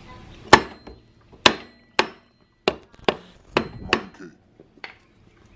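Hammer tapping the stator side cover of a Yamaha Warrior 350 ATV engine into place over its new gasket. There are about eight sharp knocks at uneven spacing, the first the loudest.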